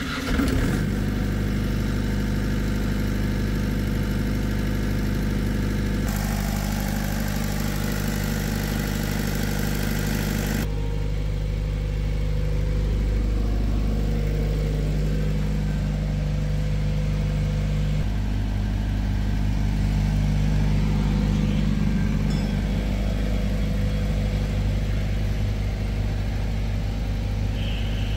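Ashok Leyland (Leypower) silent diesel generator set started with the ignition key, catching at once and settling into a steady constant-speed run. A brighter hiss comes over the engine sound for a few seconds about a quarter of the way in.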